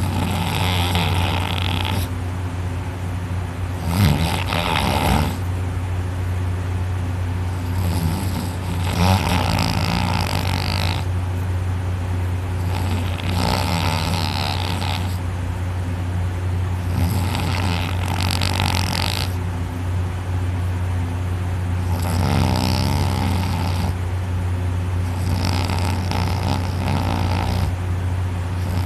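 A person snoring heavily in drunken sleep after too much alcohol, the soft palate and uvula fluttering. One rasping breath comes roughly every four seconds, over a steady low hum.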